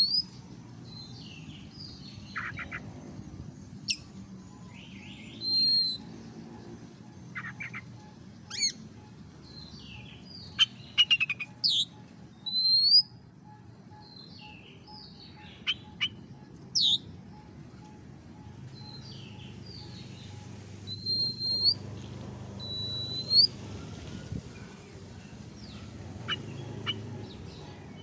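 Oriental magpie-robin singing: a string of short, varied phrases of clear rising whistles mixed with quick sharp clicking notes, with short pauses between phrases.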